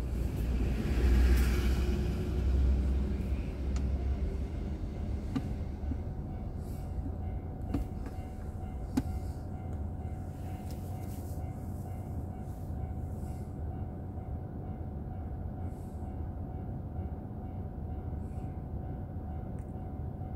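Car driving, heard from a dashboard camera inside the cabin: a steady low road and engine rumble, with a louder rushing swell of passing noise in the first few seconds and a faint steady whine for the rest.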